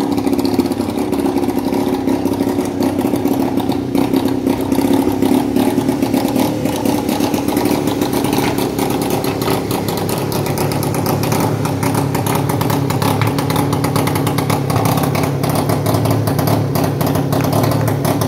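Small engine on a prototype unmanned ground vehicle running steadily with a rattly edge as the vehicle drives. Its note drops lower about halfway through.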